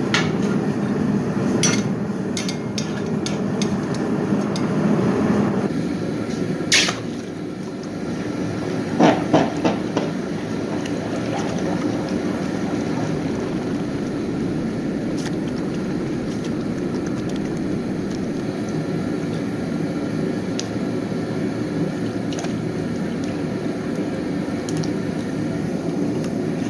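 Steady rushing, bubbling noise of a hot steel power-hammer die being heat treated to harden it, with a few sharp metallic clinks about 2, 7 and 9 seconds in.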